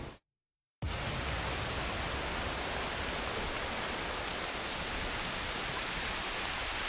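Rain falling steadily, an even hiss with no let-up; the sound drops out completely for about half a second near the start.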